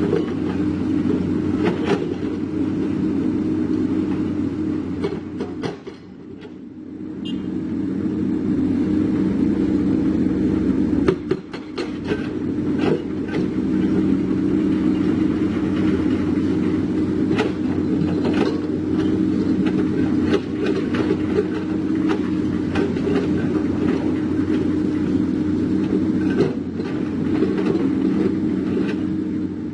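Doosan DX225LCA crawler excavator's diesel engine running steadily under load, with irregular clanks and scrapes of the steel bucket and tracks against rock.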